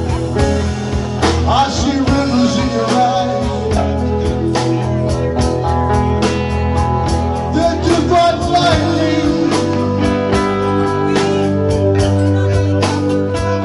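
Live rock band playing: electric guitar, bass guitar, Nord Electro keyboard and Tama drum kit, with drum hits keeping an even beat.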